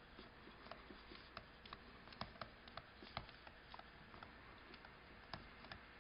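Faint, irregular ticks and taps of a stylus writing by hand on a tablet, a few per second, over an otherwise near-silent room.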